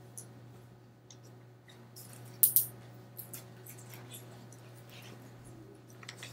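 Quiet small-room tone with a steady low hum, scattered faint clicks and rustles, and two sharp clicks close together about two and a half seconds in.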